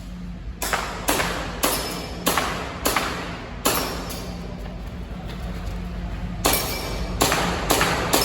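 Airsoft pistol firing a string of sharp shots, each with a short ringing tail: about six at roughly half-second spacing, then a pause of a few seconds, then four more near the end.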